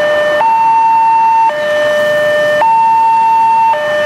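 Railway level-crossing warning alarm sounding an electronic two-tone signal, a low and a high tone alternating about once a second, while the crossing barrier comes down: the warning that a train is approaching.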